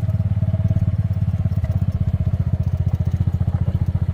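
A small engine running steadily at a fast, even idle, its low pulse unchanging.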